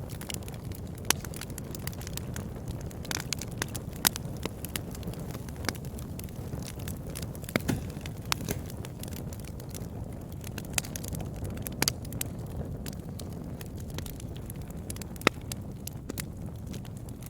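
Wood fire crackling: a steady low rumble and hiss of burning, with sharp irregular pops and snaps scattered through it.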